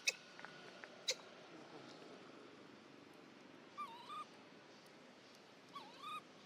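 Baby monkey calling twice, about two seconds apart, each call a pair of quick high squeaks that dip and rise in pitch. Two sharp clicks come in the first second or so.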